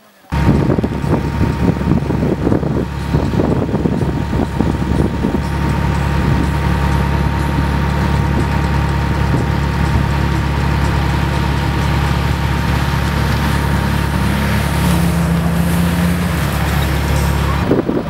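Off-road SUV engine running steadily, a constant low engine note that starts abruptly and cuts off just before the end.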